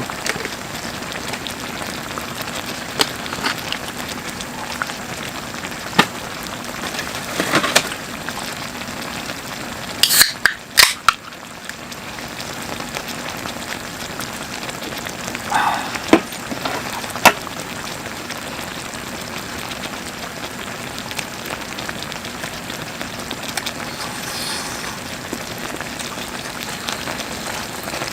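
Food sizzling in a pan over a small wood fire: a steady hiss with scattered sharp crackles, and a short clatter about ten seconds in.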